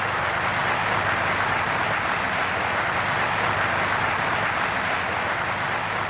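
A large audience applauding: a steady, dense wash of many people clapping.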